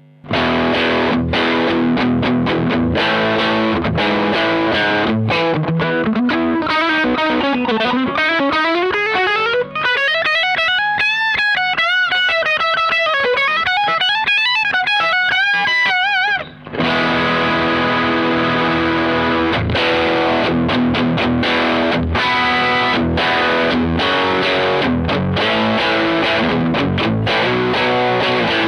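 Electric guitar played through a Fender Hot Rod Deluxe IV 40-watt tube combo amp with a 12-inch Celestion Type A speaker, in its high-gain mode: heavily distorted chords, then from about seven seconds in a single-note lead line with wavy vibrato bends, a short break, and distorted chords again.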